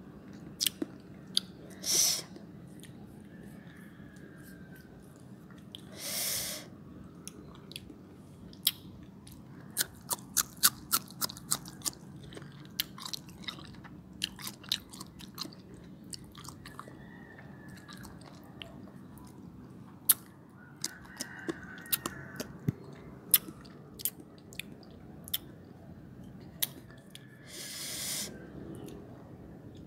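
Close-up chewing of crisp young mango slices: runs of sharp crunches as the firm flesh is bitten and chewed, with a few short noisy bursts between them.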